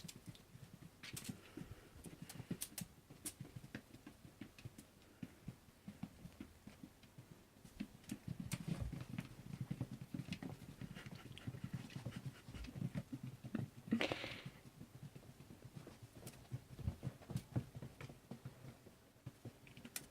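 A house cat running wild, its paws thudding irregularly on the floor in quick patters, busiest in the middle, with one brief louder, higher sound about two-thirds of the way through.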